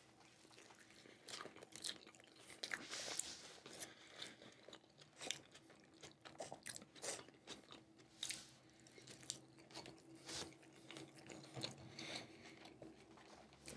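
A person biting into and chewing a double cheeseburger: faint, irregular mouth clicks and smacks.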